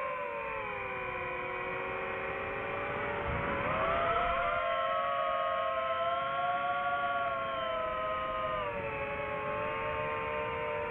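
FPV quadcopter's brushless motors and propellers whining as several close tones. Their pitch dips and then climbs sharply about four seconds in as the throttle is punched, with a short rush of low rumble, then eases down again near the end.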